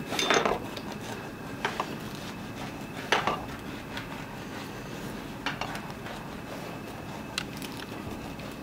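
Kitchen knives and a plastic cutting board clattering as they are handled and set down: about six separate knocks and scrapes, the loudest at the very start, over a faint steady hum.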